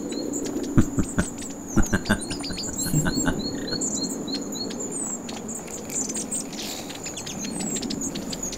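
Woodland ambience: a small bird giving short chirps, several a second, over a steady high insect trill. A few sharp clicks or knocks come between about one and two and a half seconds in.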